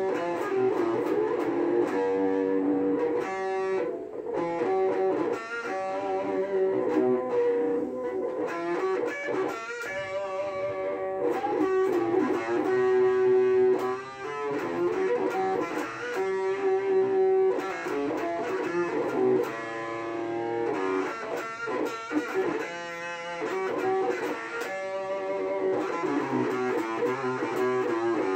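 Electric guitar playing a melodic line: held notes and short runs of quicker notes.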